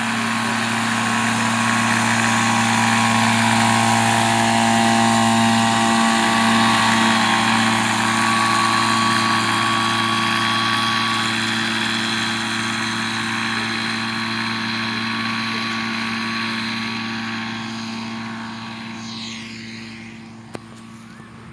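Ultralight aircraft's engine and pusher propeller running at a steady pitch as it rolls past close by, then fading away over the last few seconds. A single sharp click sounds near the end.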